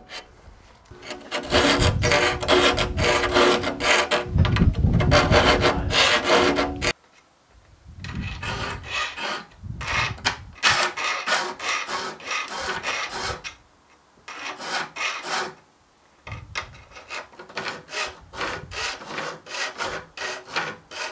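Triangular file rasping stroke after stroke across the steel teeth of a Disston crosscut saw clamped in a vise, sharpening the teeth. For the first several seconds the strokes are loudest and the blade rings with a steady tone under them; after that the filing comes in runs separated by short pauses.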